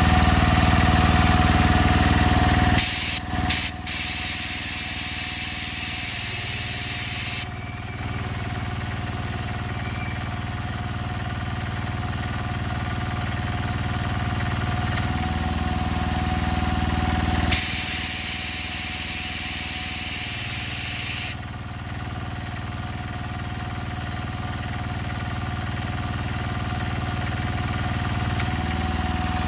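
A Kubota single-cylinder diesel engine runs an Iwata air compressor, with compressed air hissing out in two long blasts, one about 3 seconds in and one about 18 seconds in, each lasting about four seconds. Near the end the engine begins to slow.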